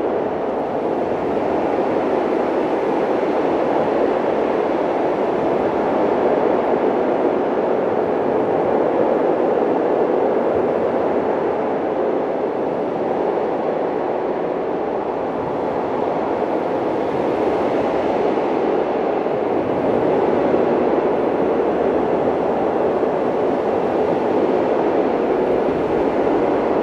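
Wind sound effect: a steady rushing noise without tones or clicks, its level rising and falling gently.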